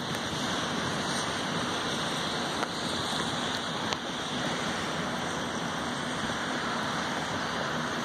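Steady hiss of wind and rain on the phone's microphone, with a few faint ticks.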